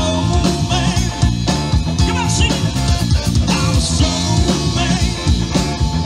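Live rock band playing: amplified electric guitar over a drum kit, with a steady driving beat.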